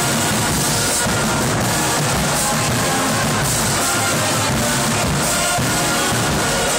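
Marching band playing loudly: brass with tubas and drums sounding together without a break.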